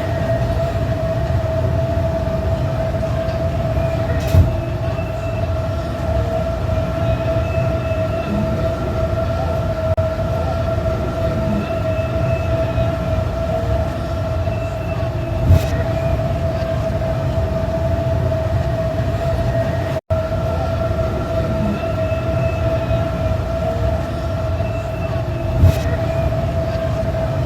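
A steady machine-like hum, one constant tone over a low rumble, with a soft click about every ten seconds.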